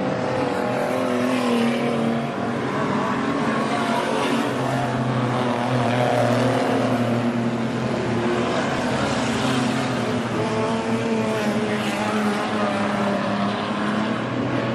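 Several winged stock car engines running together at low, fairly steady revs, their notes rising and falling a little as the cars circulate slowly in a line.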